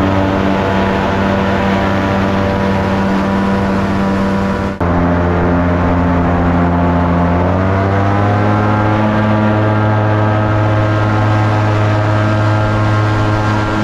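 Small motorboat's engine running hard under way up a river rapid, with water rushing along the hull. About five seconds in the sound drops out for an instant, and around eight seconds in the engine pitch rises and holds higher.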